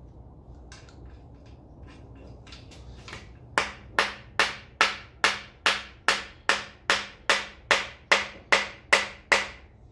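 Dead blow hammer tapping the main bearing caps of a 5.3L LS engine block down into their seats: a few faint clicks, then about fifteen sharp, evenly paced taps, roughly two and a half a second. The caps are not yet fully seated, with their bolts already started.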